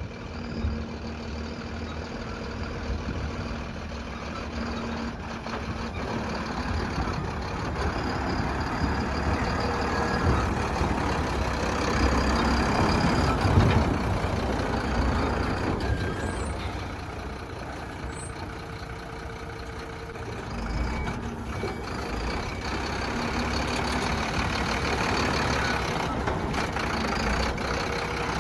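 Diesel engine of a JCB backhoe loader working under load while digging and loading mud. It rises and falls with the work and is loudest about halfway through.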